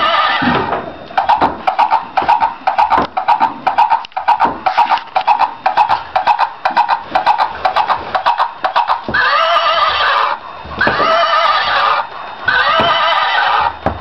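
Plush rocking horse's electronic sound unit playing recorded horse sounds: a neigh at the start, several seconds of rapid galloping hoofbeats, then three neighs one after another near the end.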